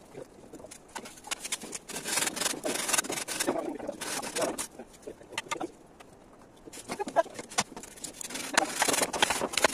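Hand tools working green bamboo: rasping strokes and sharp knocks in two spells, with a quieter pause around the middle.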